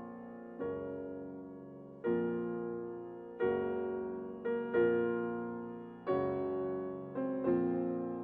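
Slow, gentle piano background music: soft chords struck about once every one to one and a half seconds, each fading before the next.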